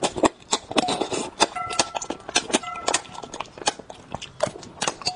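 Close-miked eating: a person chewing and sucking spicy braised fish off the bones, with rapid irregular wet mouth clicks and smacks and two brief squeaky tones in the middle.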